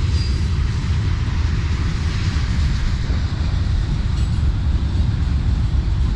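Freight cars of a long Norfolk Southern manifest train rolling past at a constant speed: a steady, unbroken low rumble of wheels on rail.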